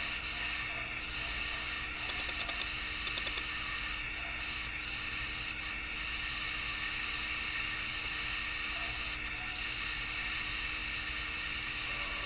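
Steady hiss of background noise with a faint constant hum, unchanged throughout, and a few very faint ticks about two to three seconds in.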